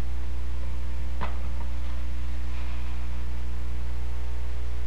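Steady low electrical mains hum, with a single knock about a second in.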